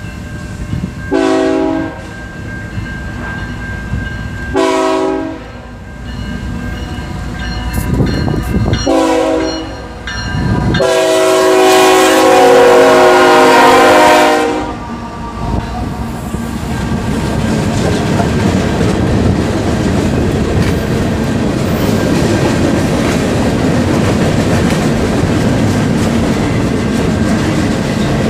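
Multi-tone air horn of a CSX freight train's lead diesel locomotive sounding four blasts. The fourth is the loudest and is held for about three and a half seconds as the locomotive draws level. Then the locomotives and the freight cars roll past with a steady loud rumble and clatter of wheels over rail joints.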